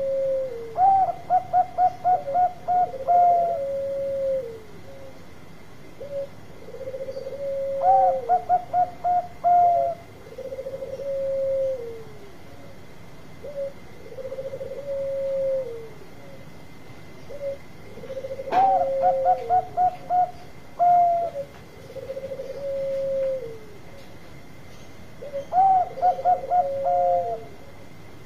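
Zebra dove (perkutut Bangkok) cooing: four songs, each a quick run of staccato notes ending on a longer note, with lower drawn-out coos between the songs.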